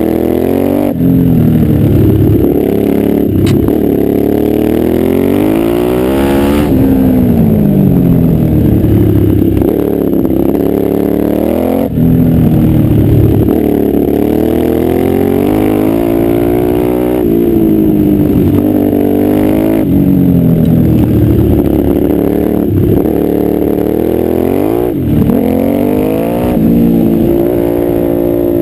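Quad bike (ATV) engine under way, heard from the rider's helmet. It revs up and drops back again and again as it shifts gears and the throttle comes off and on through the bends. There are sharp drops in pitch about a second in, near 3.5 and 6.5 seconds, around 12 seconds, and again near 25 seconds.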